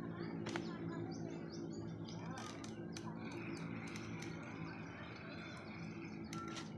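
Birds chirping outdoors, short twittering calls over a steady low hum.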